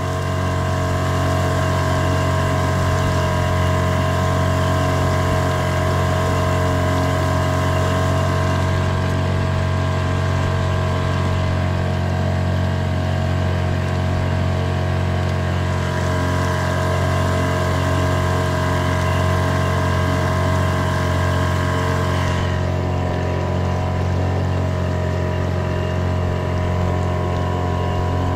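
A boat's motor running steadily at a constant pitch as the boat travels across the water.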